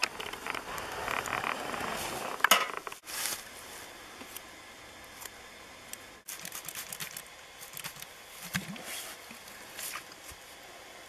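Close handling noise over dry leaves, with scattered small sharp clicks and snips from scissors and ear-tag pliers. The sound breaks off abruptly twice.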